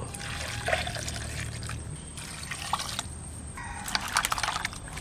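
Water poured from a pot into a basin of cut taro stolons for about two seconds, then, near the end, hands swishing and rubbing the stems in the water with small splashes.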